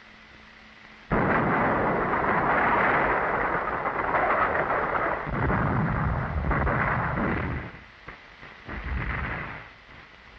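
Battle sound effects on a 1945 film soundtrack: about a second in, a sudden loud blast of explosions and gunfire that rumbles on for several seconds, fades, and comes back in a shorter burst near the end.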